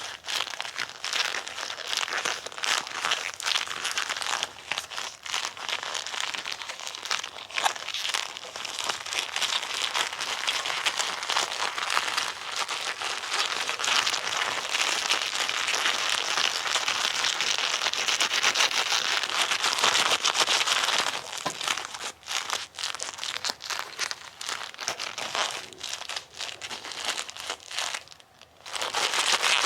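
Bilpearl rubber gloves rubbed hard against each other, sticking and peeling apart in a dense, continuous crackling, with a short pause near the end.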